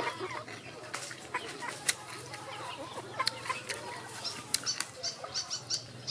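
Chickens clucking in the background, mixed with sharp close clicks and crackles from raw leafy greens being handled and eaten. The clicks come thicker in the second half.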